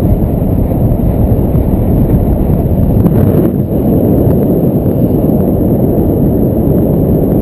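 Airflow buffeting a GoPro's microphone in paraglider flight: a loud, steady, low wind rush with no break.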